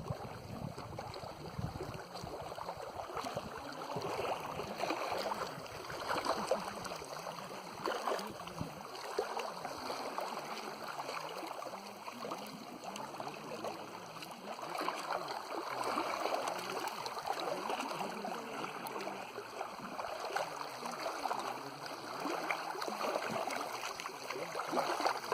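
Moving water: a steady rushing wash that swells and eases every few seconds.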